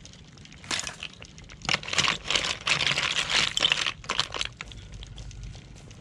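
Cooked snails in their shells clattering and rustling as they are scooped out of the pot, in uneven bursts that are busiest from about two to four seconds in.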